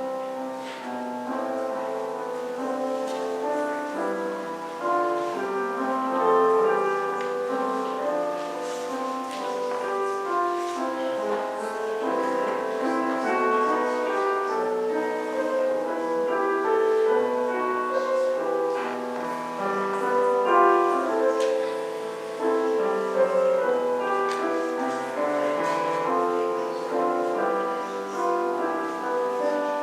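Instrumental piano music, a continuous flow of notes.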